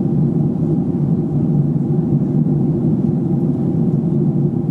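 Airliner cabin noise in flight, heard from inside the cabin: a steady low drone of engines and rushing air.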